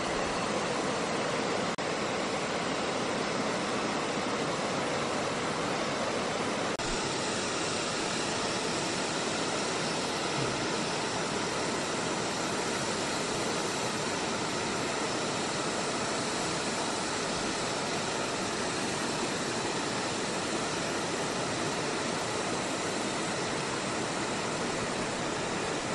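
Shallow rocky river rushing over stones: a steady, even noise.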